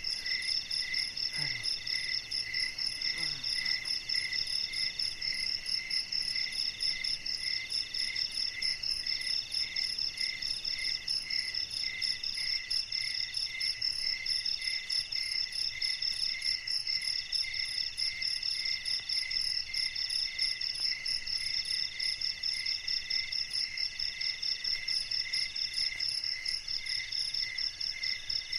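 Night insect chorus of crickets and other insects trilling steadily at several pitches. One trills in rapid pulses, and a higher one repeats in phrases every second or two.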